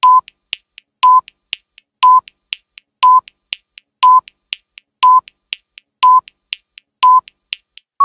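Countdown timer sound effect: a short beep once a second with fainter ticks between the beeps. A longer, steady beep begins right at the end as the count reaches zero.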